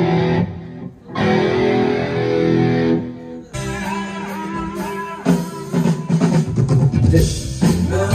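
Rock band rehearsing with electric guitar and drum kit. Held guitar chords break off briefly about a second in, then guitar and drums go into a rhythmic passage from about three and a half seconds.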